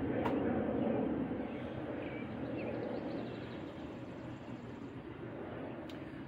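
Outdoor background noise: a low rumble that fades gradually over a few seconds, with a sharp click at the start and a faint high chirp midway.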